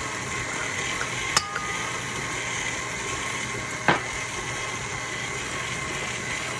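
Electric stand mixer running steadily at high speed, its wire whisk beating egg whites and sugar toward stiff peaks for Swiss meringue. It gives a steady motor hum, with two sharp clicks about a second and a half and four seconds in.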